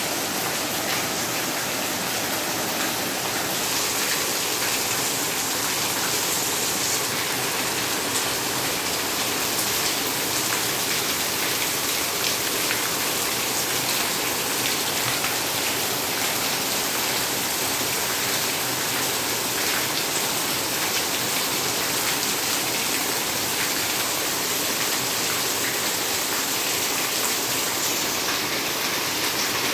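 Heavy rain falling steadily, a constant hiss with many small drop impacts.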